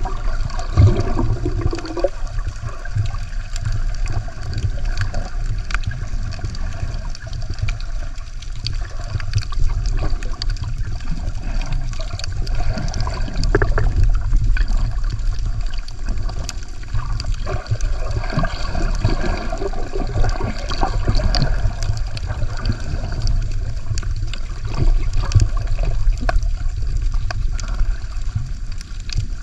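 Water sloshing and gurgling around a camera held just below the sea surface, over a steady low rumble with many small scattered clicks.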